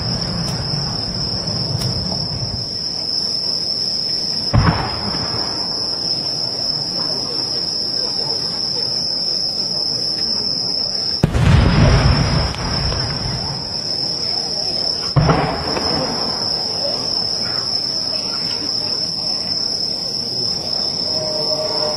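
Aerial firework shells bursting with booms three times: about four and a half seconds in, a louder one about eleven seconds in that rumbles on for a second or so, and another about fifteen seconds in. Under them, a steady high chirring of crickets.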